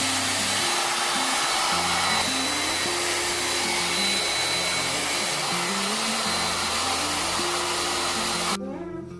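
Handheld blow dryer running steadily with a constant rushing hiss, cutting off suddenly near the end.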